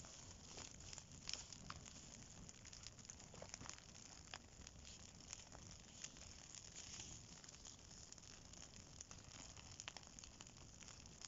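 Small kindling fire of birch bark and dry twigs crackling faintly, with irregular sharp pops.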